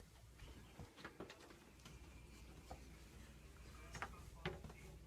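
Near silence: room tone with a few faint, scattered small taps.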